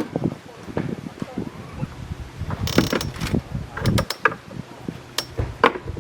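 Irregular clicks, knocks and rattles of camping gear being handled, with a short rasping hiss about three seconds in.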